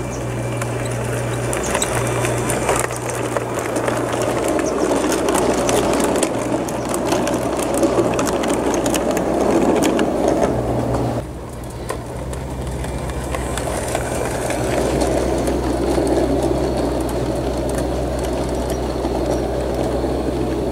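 Large-scale garden model train, a Bachmann 'Thomas' locomotive hauling coaches, rolling along the track: a steady rumble of wheels on the rails with rapid fine clicking, over a low steady hum. The sound drops suddenly about eleven seconds in, then builds again as coaches run past.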